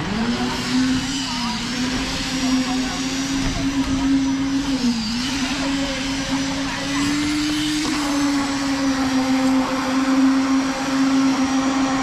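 Electric concrete poker vibrator running with a steady high hum, speeding up just at the start. Its pitch sags briefly about five seconds in, as the motor takes load.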